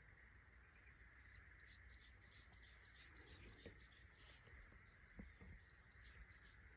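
A bird faintly calling a quick series of about ten short, evenly repeated high notes, then three more near the end, with a few faint clicks.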